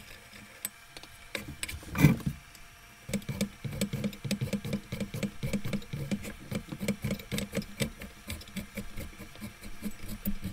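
A hand tap turned in a T-handle tap wrench, cutting threads in a freshly drilled hole in a cast-iron lathe bed. One louder scrape about two seconds in, then a rapid rhythmic clicking and crunching, about four a second, as the tap is worked into the metal.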